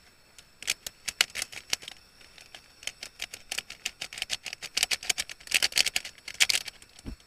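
Camping pot on a canister gas stove ticking and crackling irregularly as the water inside heats toward the boil, with a brief low thump near the end.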